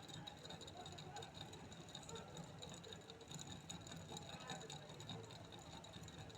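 Air-cooled VW Beetle flat-four engine running faintly, a steady low hum with a steady high whine over it, from the alternator's bearing growling.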